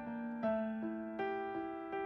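Background music: a slow piano melody, with a new note struck roughly every half second, each ringing on and fading.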